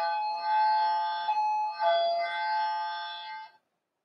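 A held two-note chord of steady electronic-sounding tones, swelling twice and cutting off abruptly shortly before the end.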